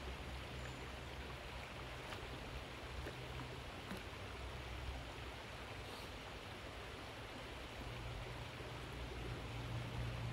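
Creek water running steadily, with soft splashing from a dog paddling as it swims.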